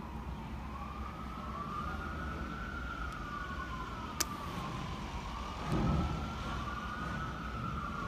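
A siren's slow wail, its pitch rising and falling about once every five seconds. A sharp click comes about four seconds in and a brief low thud just before six seconds.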